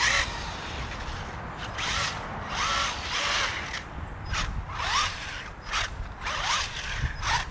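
Small electric RC car driven in short throttle bursts: its motor whines up in quick rising pitches, with tires screeching and scrabbling each time.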